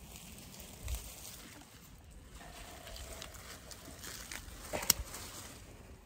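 Faint rustling and light clicks of rose blossoms being picked from the bush, with one sharp click about five seconds in.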